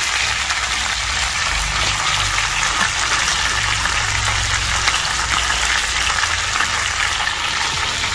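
Masala-coated anchovies sizzling steadily in shallow oil on a cast-iron dosa tawa, a continuous frying hiss.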